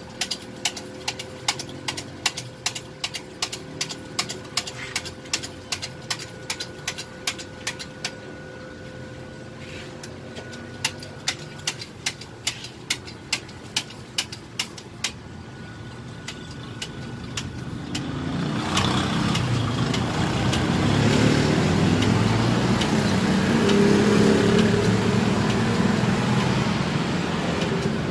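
Hydraulic bottle-jack press being pumped by hand, a steady clicking about three times a second that stops twice. From about two-thirds of the way through, a vehicle engine running grows loud and covers the rest.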